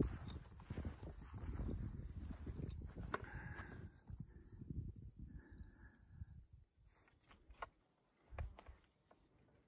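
Insects trilling in a steady, pulsing high tone over an uneven low rumble with soft knocks on the microphone. About seven seconds in both cut off abruptly, leaving a fainter, higher insect pulsing.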